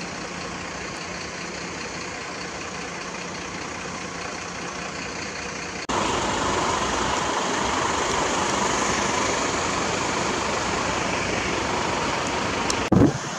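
Fire trucks' diesel engines idling steadily. About six seconds in the sound jumps to a louder, brighter running. A couple of short low thumps come near the end.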